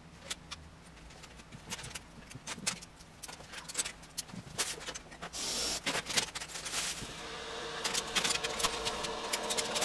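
Plastic Lego bricks clicking and clattering in quick succession as loose pieces are rummaged through and pressed together. A brief hiss comes about five seconds in, and a steady hum joins about seven seconds in.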